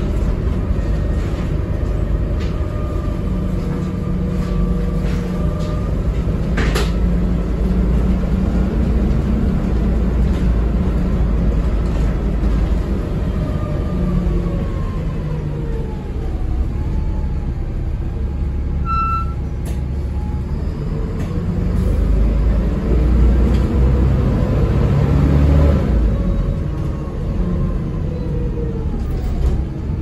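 Volvo B7TL double-decker bus under way, heard from inside the lower deck: the diesel engine's steady rumble, with a drivetrain whine that rises and dips as the bus changes speed and a louder stretch in the last third. A single sharp knock about seven seconds in.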